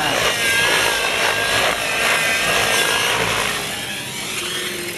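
Radio-controlled model helicopter flying aerobatics: its engine and rotor whine rise and fall in pitch as it manoeuvres. The whine fades about three and a half seconds in as the helicopter moves away.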